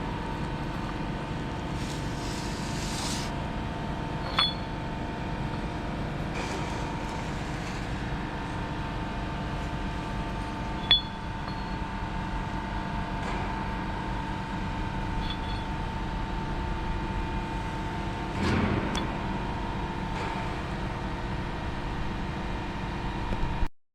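Steady machine hum with a high whine, in a metalworking shop, broken by a few light metallic clinks, the sharpest about 4 and 11 seconds in; the sound cuts off abruptly just before the end.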